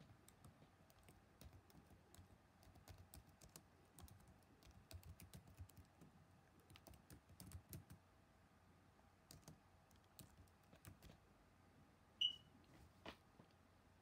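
Typing on a laptop keyboard: a long run of soft key clicks with short pauses, thinning out after about eleven seconds. A short high-pitched squeak near the end is the loudest sound.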